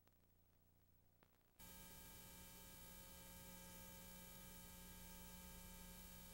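Near silence, then about a second and a half in a steady hiss with an electrical hum switches on and holds: background noise from a videotape recording that carries no sound.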